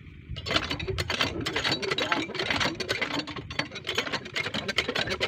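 Small engine of a field irrigation water pump starting about half a second in, then running with a fast, rattling beat.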